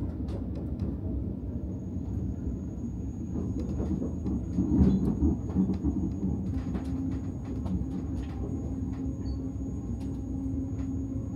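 Commuter train running, heard from inside the carriage: a steady low rumble of wheels on rail with scattered clicks and rattles. The rumble swells briefly near the middle, and a thin steady high tone sets in about a second and a half in.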